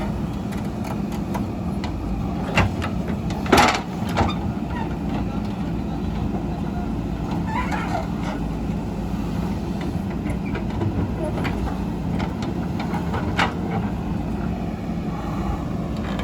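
JCB backhoe's diesel engine running steadily under work, with a few sharp knocks over it, the loudest about three and a half seconds in.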